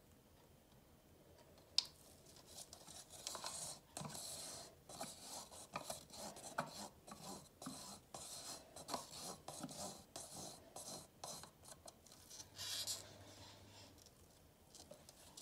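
A wooden stir stick scraping and rubbing inside a thin plastic cup, in irregular strokes, as epoxy resin is scraped out of it; a single sharp click comes just under two seconds in.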